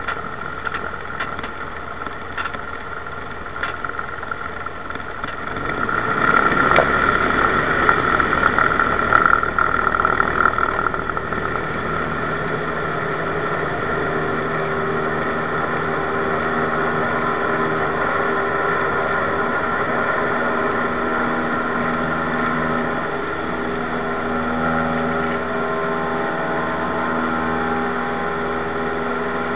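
Cessna 172's piston engine and propeller at takeoff, heard inside the cabin. The sound swells about six seconds in and stays louder and rougher for about five seconds, then settles into a steady drone with a clear pitch.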